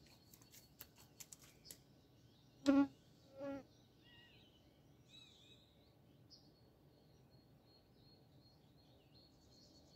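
A few light clicks, then two short loud pitched calls about a second apart, followed by faint bird chirping.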